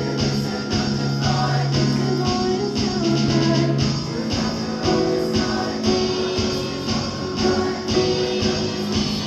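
Vocal ensemble singing a pop arrangement over a steady beat, with held low notes beneath.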